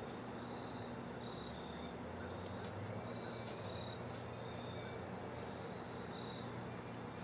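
An insect, likely a cricket, trilling in short high chirps about half a second long that repeat roughly once a second over a faint steady low hum.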